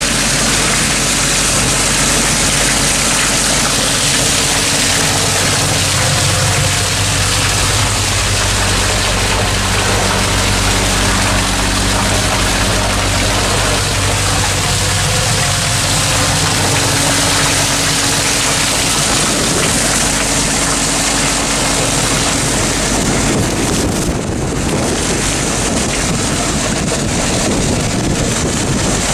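Hydroseeder running: a steady engine hum under loud rushing water filling the mixing tank and the churn of the agitator. Near the end the hum fades, leaving a rougher rushing noise.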